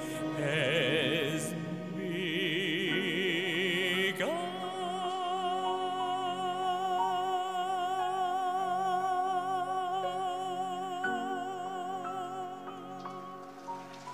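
Male singer with a live symphony orchestra ending a ballad: a few wavering sung notes, then from about four seconds in one long final note held with vibrato over sustained orchestral chords.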